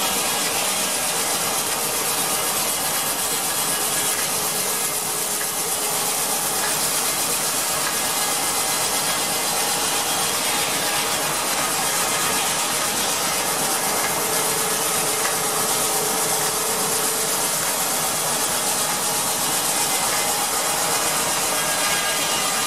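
Steam-powered circular sawmill running: the large circular saw blade spins and its belt-and-pulley drive and log carriage clatter steadily as a squared timber is fed through the blade.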